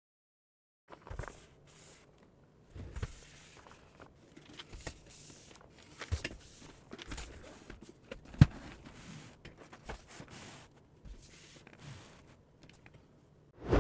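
Close-up handling noises: rustling with irregular clicks and knocks, and one sharp knock about eight seconds in.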